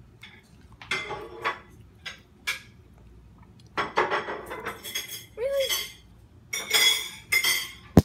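Dishes and cutlery clinking and clattering in several short bursts, with a sharp knock near the end.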